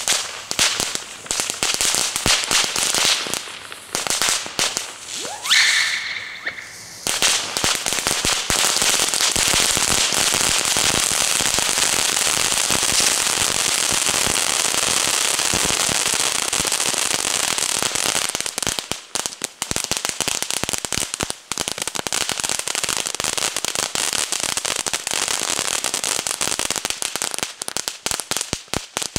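'Party Hardy' fountain compound (a volcano compound of ground fountains) burning. A few sharp cracks and a short rising whistle come first. From about seven seconds in there is a continuous loud hiss of spraying sparks mixed with dense crackling, which turns patchier near the end.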